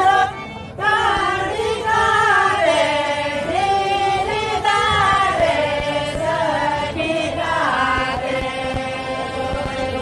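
Voices singing a Santali lagne song together, the melody moving up and down in long phrases with a short break just under a second in.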